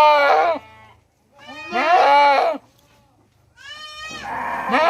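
Goat bleating loudly in three long, wavering calls, one ending just after the start, one in the middle and one starting near the end; the goat is a hungry one calling.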